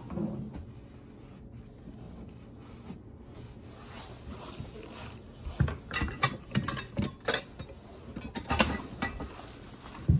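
Tool handling: a run of sharp metallic clinks and knocks from a screwdriver being worked, between about five and a half and nine seconds in, then a single loud thump near the end.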